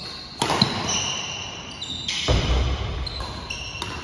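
Athletic shoes squeaking on a hardwood gym floor during a badminton rally, with sharp racket strikes on the shuttlecock near the start and near the end, and a low thud a little past halfway.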